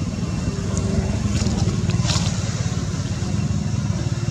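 Steady low rumble throughout, with a brief faint crackle about two seconds in.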